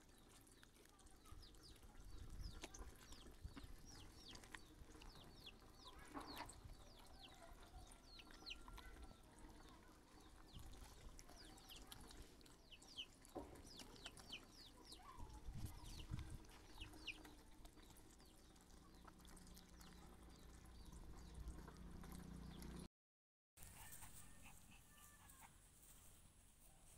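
Faint birds chirping: many short, quick high peeps scattered through the first two-thirds, thinning out later.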